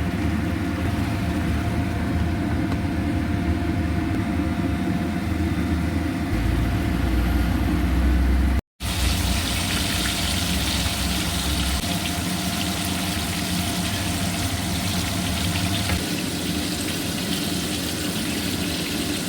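A steady low rumble with a faint hum and a hiss over it, cut by a brief dropout about nine seconds in, after which the hiss is brighter.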